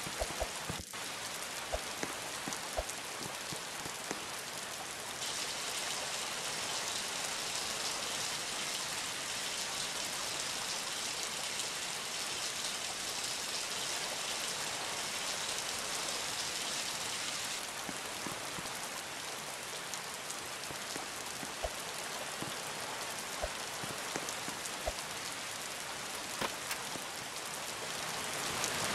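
Steady rain falling, an even hiss with scattered sharper drop ticks. The hiss grows brighter and louder from about five seconds in and drops back at about eighteen seconds.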